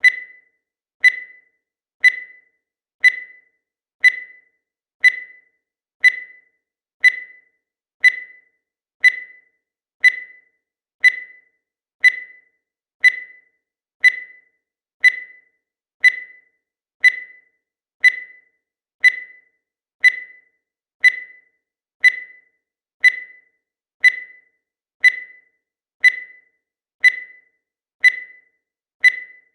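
Digital timer beeping once a second: a short, high beep with a sharp start that dies away quickly, repeating evenly about thirty times.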